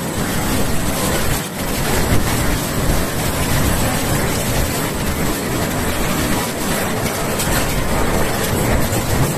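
Loud continuous rumbling and rattling of a railway station and the train standing at its platform, shaken by a strong earthquake.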